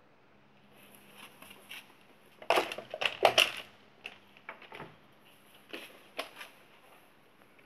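Dry hay and straw rustling and crunching, with a cluster of loud crackles about two and a half seconds in, then a few scattered ones.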